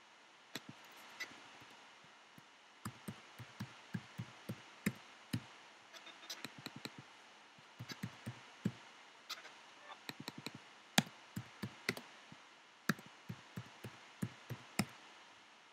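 Typing on a computer keyboard: irregular key clicks in short runs with brief pauses.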